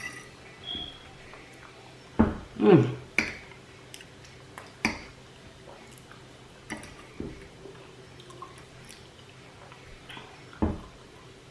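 A person eating: soft mouth sounds and a few short clicks and taps of cutlery on a dish, with a brief murmur a little over two seconds in.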